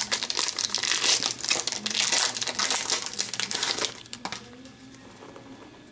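Foil wrapper of an Upper Deck hockey card pack crinkling as it is torn open and the cards are pulled out. The crinkling stops about four seconds in, leaving only a few faint clicks of handling.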